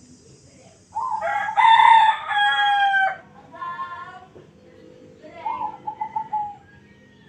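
A rooster crowing once: a loud call of about two seconds that ends on a long, held note.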